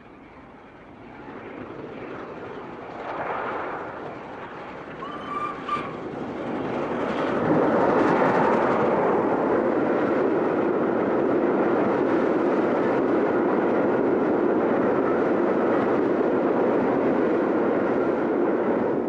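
Steam locomotive approaching and passing at speed with its train of coaches. There is a brief whistle note about five seconds in, then the loud, steady noise of the engine and carriages going by from about seven seconds on.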